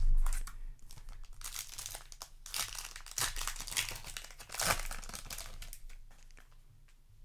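Booster pack wrapper crinkling and tearing as it is handled and opened, a run of crackles strongest in the middle, after a dull thump at the start.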